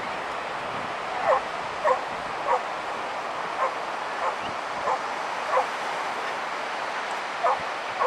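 A dog barking repeatedly, about eight short barks at irregular intervals, over a steady background hiss.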